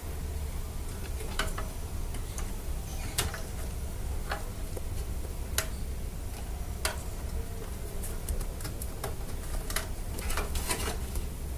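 Irregular sharp plastic clicks and cable handling as SATA power connectors from a PC power supply are fitted onto a hard disk and an SSD, with a cluster of clicks near the end, over a steady low hum.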